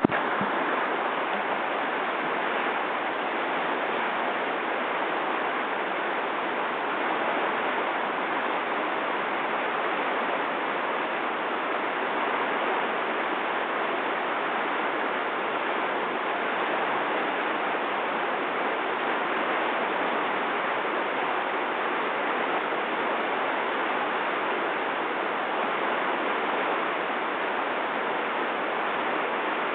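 River water rushing in a steady, unbroken hiss, as at a whitewater rapid.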